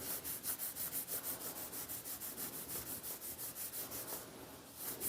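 Rapid rhythmic rubbing, about four or five strokes a second, of boiled linseed oil being worked by hand into a warm wooden screwdriver handle; the strokes stop a little after four seconds in.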